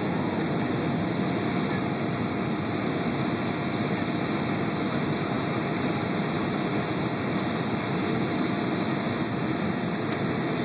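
Steady rushing cabin noise inside an airliner on approach to landing, the mix of engine and airflow noise heard at a window seat over the wing, with a faint steady hum.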